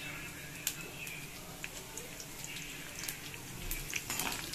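Hot oil sizzling in a kadai around a tempering of mustard seeds, urad dal, roasted chana dal, curry leaves and a slit green chilli, with scattered pops and crackles as the seeds splutter. A steel spoon stirs in the pan near the end.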